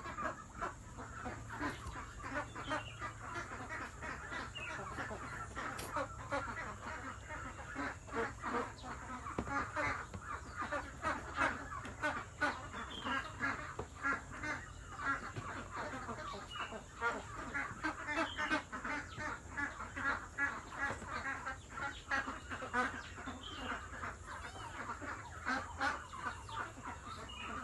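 A flock of poultry calling and chattering, many short calls overlapping in a continuous din.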